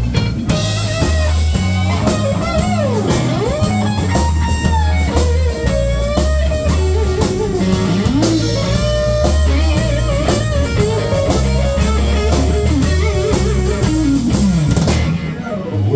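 Live blues-rock band playing an instrumental break: a lead electric guitar plays bent and sliding notes over drums and a low bass line. The band thins out for a moment near the end, then comes back in.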